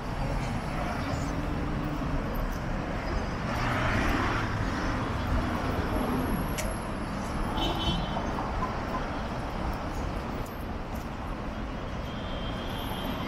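City street traffic: cars passing in a steady wash of road noise, with a brief high chirp about seven and a half seconds in.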